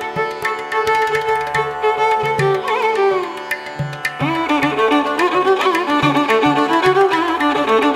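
Background music in an Indian classical style: a violin melody over a steady drum beat.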